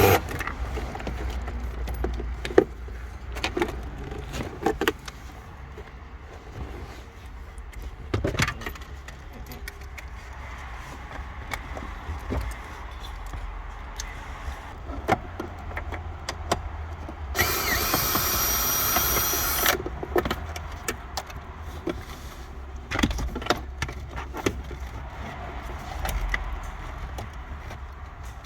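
Scattered clicks, taps and light rattles of hand tools, small screws and plastic dash trim being worked loose, with one louder rasping noise lasting about two seconds a little past halfway.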